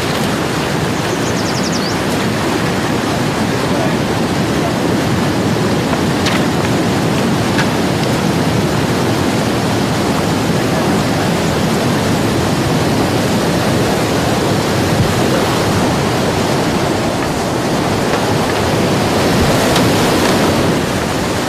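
Rushing river rapids: a loud, steady rush of whitewater that swells slightly near the end.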